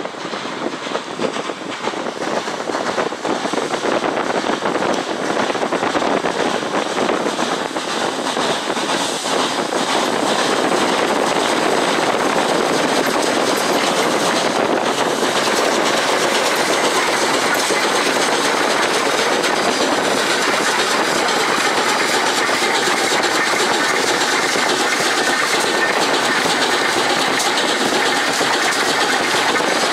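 Pere Marquette 1225, a 2-8-4 Berkshire steam locomotive, passing close by at speed and working hard. It grows louder over the first ten seconds or so, then holds at a loud, steady rush.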